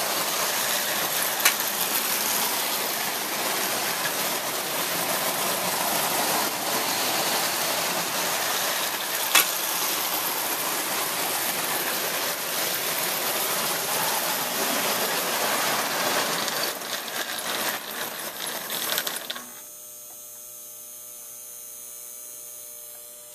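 Three-rail O gauge toy train running on its track, a loud steady mechanical noise with two sharp clicks. About nineteen seconds in it cuts off abruptly, leaving only a steady electrical hum.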